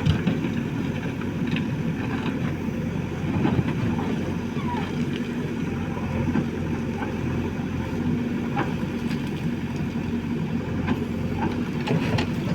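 An engine running steadily with a constant low hum, with a few light clicks and knocks over it.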